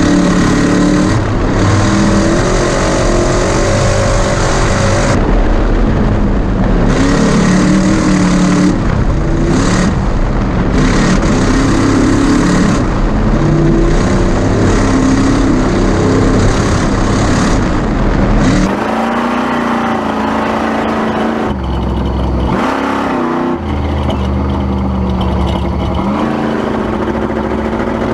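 Ford Ranger off-road race truck's engine running hard, its pitch rising and falling with the throttle and gear changes over heavy road noise. About two-thirds of the way through the sound turns lower and steadier, with less deep rumble.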